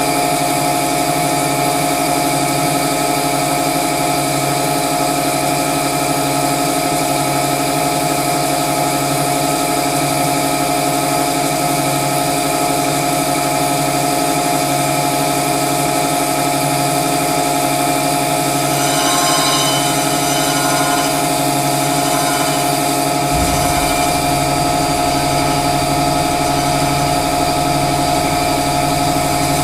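Winona Van Norman CG250 crankshaft grinder running with a steady machine hum and whine. A brief higher-pitched sound joins about two-thirds of the way through, and a deeper rumble comes in shortly after and stays.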